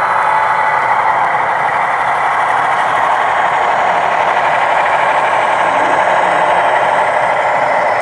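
Sound-equipped HO scale model diesel locomotives passing: their small onboard speakers play diesel engine sound, steady and loud, mixed with the running noise of the model wheels on the track.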